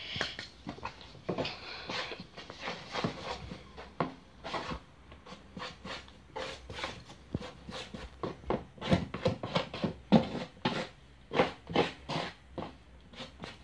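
A putty knife scraping and slapping through wet powdered wall filler in a plastic mixing tub, in quick irregular strokes, a few a second, as powder and water are worked into a thick paste.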